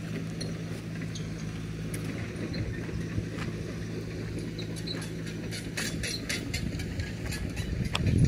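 Hitachi hydraulic excavator's diesel engine running steadily. Its hum fades about two-thirds of the way through, and a run of sharp clicks and knocks follows, with a louder knock near the end.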